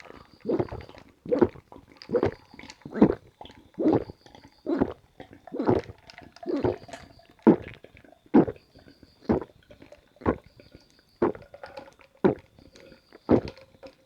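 A person gulping down carbonated apple mint sparkling water, swallowing about once a second in a steady run of loud, close gulps.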